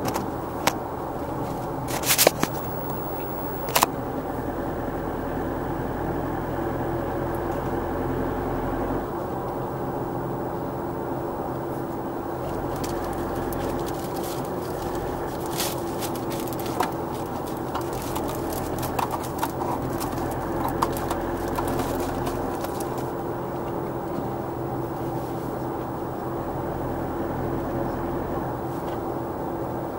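Steady road and engine noise of a car cruising on a highway, with a constant hum. Sharp clicks come three times in the first four seconds, and a scatter of small ticks follows in the middle.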